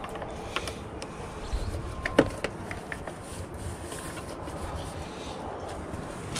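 Light rubbing and small taps of a pencil and hand against a vinyl railing as cut lines are marked, with a sharper click about two seconds in, over a steady low hiss.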